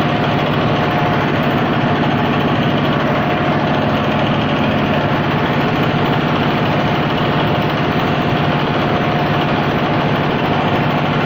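An engine idling steadily, its even running note unbroken.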